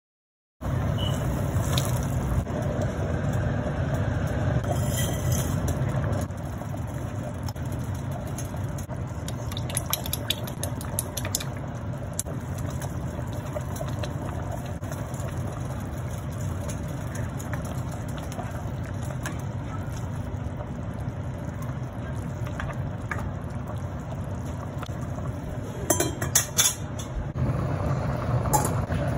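Steady low rumble and hiss of a stainless pot of broth boiling on an electric stovetop. A few sharp clinks come near the end.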